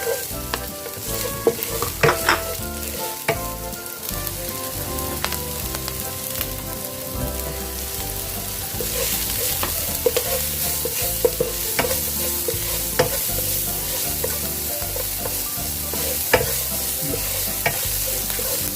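Chopped garlic and onion sizzling in hot cooking oil in a wok as they are stirred, with sharp clicks of the utensil against the pan now and then. The sizzle grows louder about halfway through.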